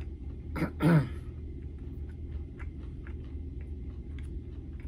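A short voiced sound about half a second in, then a steady low hum with faint scattered small clicks and smacks of someone chewing and picking at fried food with the fingers.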